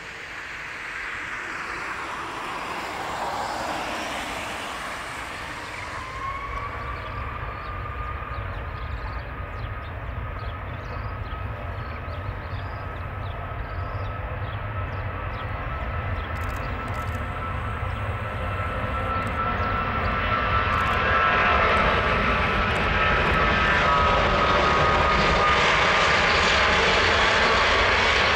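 Rolling-takeoff noise from a Boeing 777-200ER's two Rolls-Royce Trent 800-series turbofans at takeoff power. A high whine dips, climbs back about six seconds in and then holds steady, over a deep rumble that grows steadily louder as the jet accelerates down the runway.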